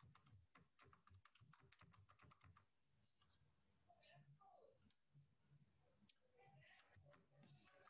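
Faint computer keyboard typing: a quick run of keystroke clicks in the first few seconds, then scattered single clicks.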